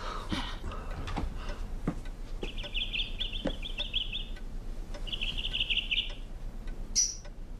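Caged lovebirds chattering in two rapid high trills, each a second or two long, then one short sharp chirp near the end.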